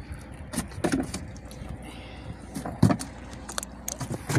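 Scattered light clicks and knocks of fishing tackle being handled in a small wooden boat while a hook is baited and readied for the drop.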